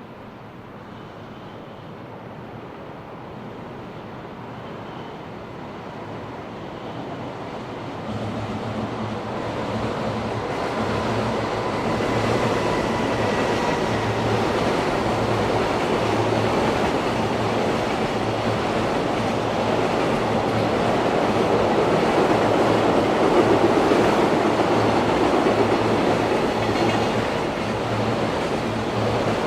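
JR Freight train approaching, its rumble growing steadily louder over the first twelve seconds or so. It then runs past loudly and steadily, with a regular pulsing clatter of wheels on rail.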